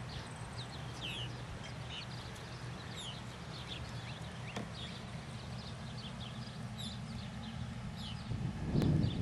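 Purple martins chirping: many short, quick calls over a steady low hum. A louder low rumble starts near the end.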